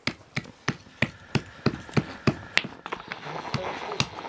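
A small adze chopping the outside of a wooden spoon blank held against a wooden stump: quick, sharp strikes of steel into wood, about three a second, in a steady rhythm.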